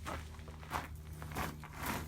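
Four short scuffs about half a second apart, like footsteps or a person shifting about, over a steady low hum.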